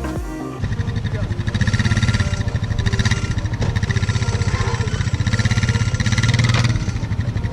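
A vehicle engine running with a fast, choppy pulse, swelling louder a few times as it is revved.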